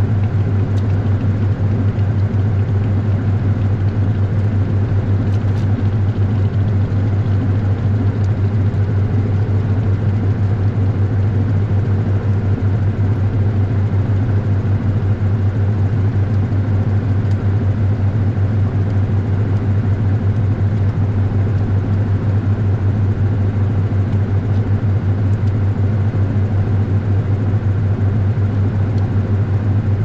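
Washing machine running, heard from a GoPro inside the drum: a steady, loud low hum and rumble that does not let up.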